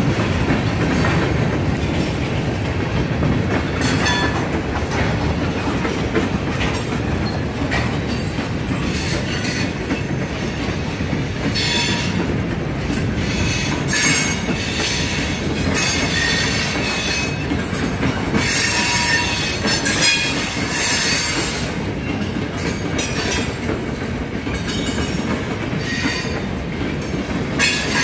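Freight train of covered hopper and tank cars rolling past: a steady rumble of steel wheels on rail, with short bursts of high-pitched wheel squeal coming and going every few seconds.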